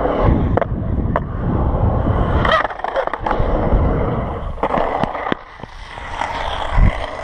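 Skateboard wheels rolling on concrete with a steady rumble, broken by sharp clacks at uneven moments. There is a heavy thump near the end.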